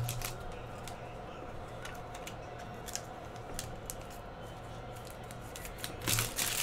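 Scattered small clicks and rustles of a foil trading-card pack being handled, then a louder crinkling as the foil wrapper is pulled open near the end.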